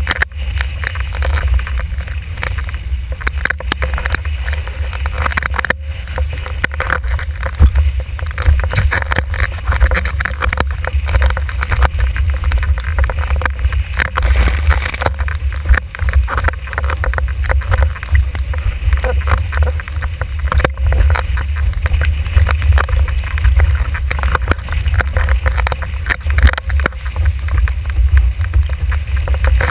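Wind buffeting a GoPro's microphone on a windsurf board planing at speed, a heavy low rush under constant splashing and hissing as the hull slaps through choppy water.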